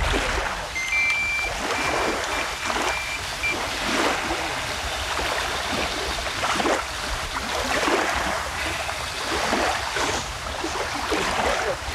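Small wind-driven waves lapping and splashing against the bank, a rush of water every second or so over a steady wash of wind.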